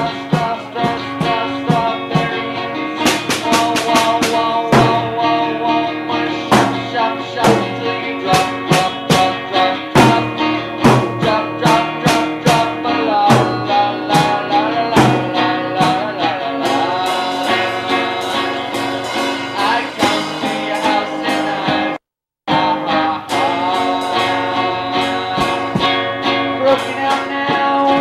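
Guitar music with a steady run of plucked or strummed notes. It cuts out completely for a split second about two-thirds of the way through.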